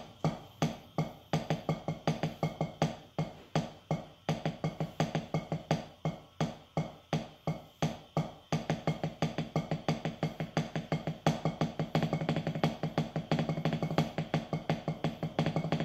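Wooden drumsticks striking an Evans practice pad, playing the Chicken in a Roll rudiment: sets of single strokes alternating with double strokes. It is played slowly first, then again faster from about halfway through.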